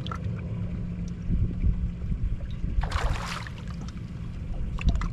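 Steady low hum of a boat's motor, with a short splash about three seconds in as a bass is netted, and a few knocks near the end.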